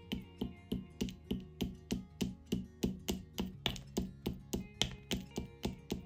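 Miniature stone pestle pounding in a small stone mortar, crushing spices: a steady run of sharp knocks, about three a second.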